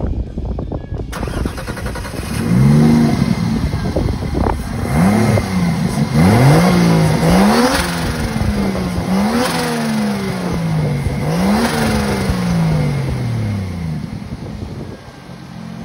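Turbocharged 3.2-litre Mercedes M104 inline-six being revved up and down about six times, each rev climbing quickly and dying away more slowly, with a hiss over the engine note. It settles back toward idle near the end.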